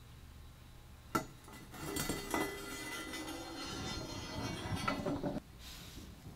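Rusty sheet-metal parts of an old manual card shuffler being taken apart and handled on a wooden workbench: a sharp click about a second in, then a few seconds of metallic clinking and rattling with some ringing, which stops abruptly.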